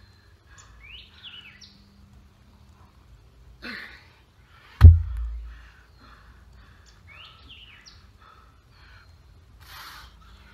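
A heavy odd-object weight dropped onto the forest floor with one loud, deep thump between power-clean reps, with a short sharp exhale about a second before it. Birds chirp in the background with quick rising calls twice.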